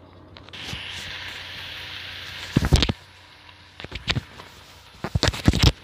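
Cooking broth poured off from a pressure cooker of goat trotters: a steady splashing hiss for about two seconds that ends in a heavy clunk, then a few light clicks and knocks.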